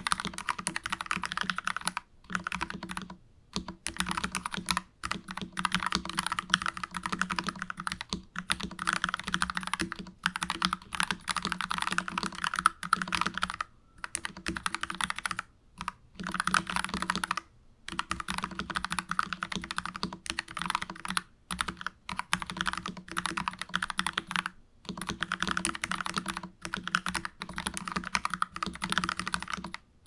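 Typing on a stock NuPhy Halo 96 mechanical keyboard with Milky Gateron Yellow linear switches, lubed with Krytox 205g0 and fitted with switch films: quick runs of keystrokes broken by short pauses every few seconds.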